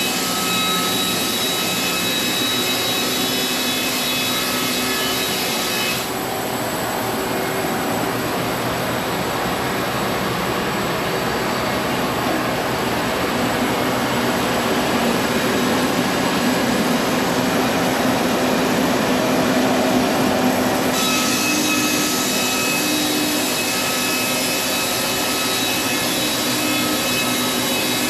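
Sawmill running steadily, its blade cutting through an antique heart pine beam for about fifteen seconds in the middle, then running on without load.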